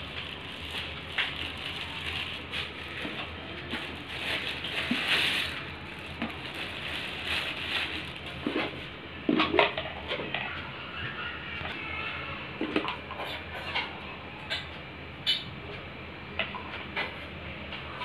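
Plastic wrapping crinkling and rustling as plastic microwave cookware is unwrapped, with scattered clicks and knocks of plastic bowls, lids and an idli stand being handled and set down; the sharpest knock comes about halfway through.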